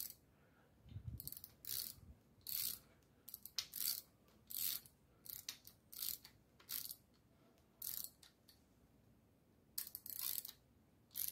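Socket ratchet clicking in short bursts, one every half second to second, as it turns the rocker-arm adjusting nuts of a V8 with hydraulic lifters down to zero lash, taking the play out of each pushrod.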